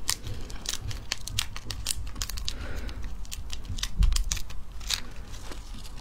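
Snake fruit (salak) being peeled by hand: its thin, scaly skin crackles and tears in many small sharp snaps as it is pulled away from the flesh. A low thump comes about four seconds in.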